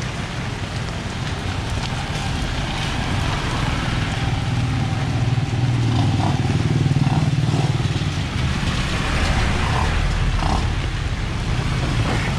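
Motor vehicle engines running close by in street traffic, swelling louder for a few seconds in the middle as one passes, over a steady hiss.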